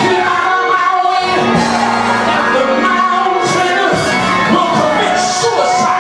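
Church music with singing and occasional shouts, in a large hall, with steady held bass and keyboard notes.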